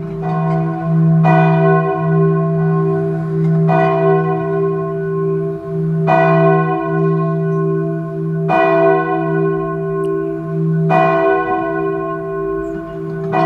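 A large bell tolling slowly, six strikes about two and a half seconds apart, each ringing on into the next over a deep steady hum.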